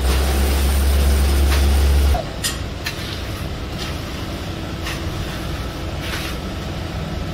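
Hand-levelling of wet concrete: a long-handled screed or float scraping through the mix in several short strokes, over a steady mechanical hum. A heavy low rumble fills the first two seconds and cuts off suddenly.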